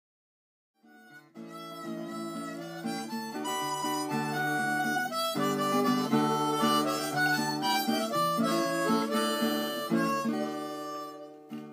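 Outro music: harmonica chords over guitar, starting about a second in and fading out near the end.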